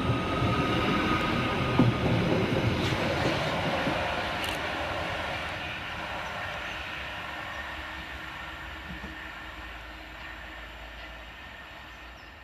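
Merseyrail Class 777 electric multiple unit departing and running away, its running noise fading steadily.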